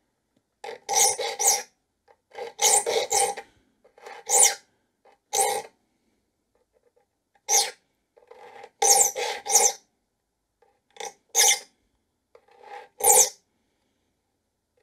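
Triangular saw file rasping across the teeth of a dovetail saw in short, separate strokes, singly and in quick runs of two or three with pauses between, each stroke carrying a ringing note. This is the re-toothing stage of filing both sides of each rip-cut tooth until the flat on its tip is gone.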